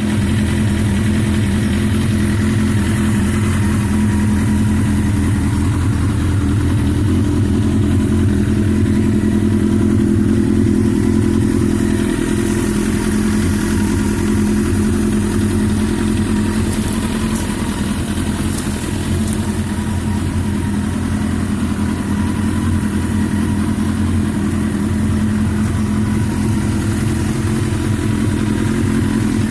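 Suzuki GSX-R1100 motorcycle's inline-four engine running loud at a steady idle, with a slight swell about ten seconds in.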